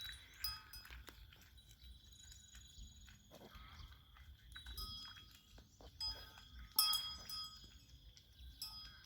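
Livestock bells clanking now and then, each stroke ringing briefly, the loudest about seven seconds in.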